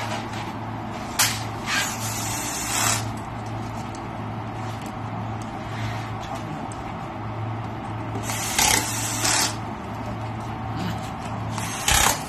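Pneumatic screwdriver driving screws into a display's back panel, its air exhaust hissing in short bursts: a few around the first three seconds, two around eight to nine seconds and one near the end, over a steady low hum.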